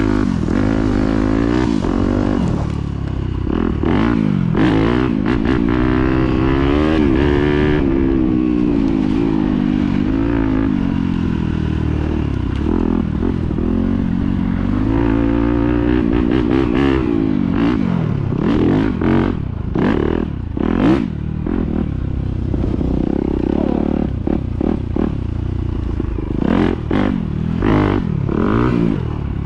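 Yamaha YZ250F's single-cylinder four-stroke engine revving while the bike is ridden, its pitch rising and falling again and again with the throttle. Scattered knocks and rattles run through it.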